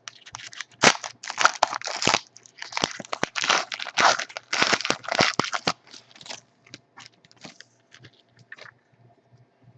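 Foil wrapper of a trading-card pack being torn open and crinkled: dense crackling for about six seconds, then fainter scattered rustles and ticks.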